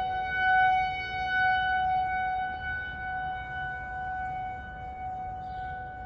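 Outdoor warning siren sounding long, steady tones that hold one pitch, with a second tone layered in. The sound swells and fades slightly in loudness.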